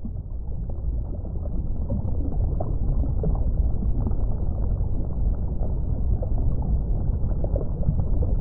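Underwater ambience: a steady low rumble of water, muffled with nothing above the midrange, with scattered short higher blips through it.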